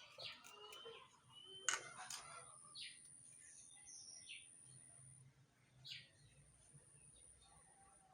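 Faint bird chirps over near silence, with scattered light clicks and taps; the sharpest click comes a little under two seconds in.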